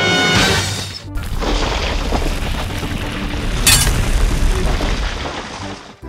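Added cartoon sound effects over music: a crash right at the start, then about a second in a deep boom that rumbles on for several seconds, with a sharp high burst near the middle.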